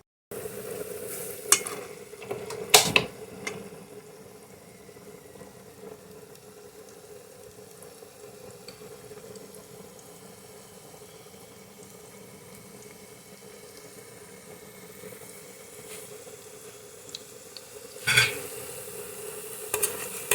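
Plantain fritter mixture frying in hot oil in a frying pan, a steady sizzle. A few sharp knocks come near the start and again near the end.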